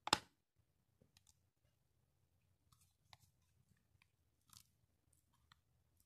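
A plastic card being pressed and slid along the rim of a car side-mirror glass to tuck an LED strip into the edge: one sharp click at the start, then a few faint scrapes and clicks.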